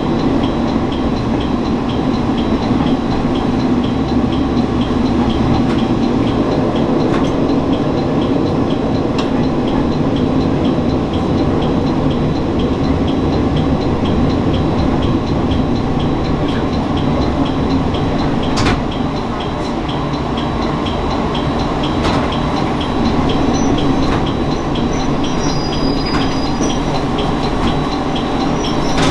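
Shigaraki Kohgen Railway diesel railcar running along the line: a steady rumble of engine and wheels on rail, with a few sharp clicks from the track along the way.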